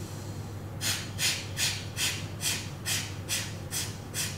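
Kapalbhati breathing done correctly: a regular series of short, forceful exhalations through the nose, about two a second, each one a sharp puff driven by snapping the belly inward, with no audible inhale between them. The puffs begin about a second in.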